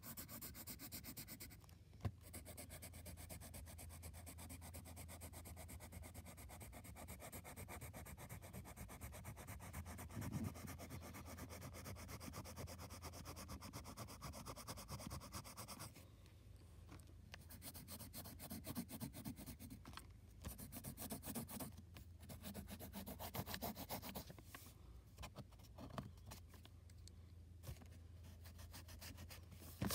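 Faint pencil strokes scratching on paper, coming in irregular bursts of quick shading strokes in the second half, over a low steady hum. A single sharp click about two seconds in.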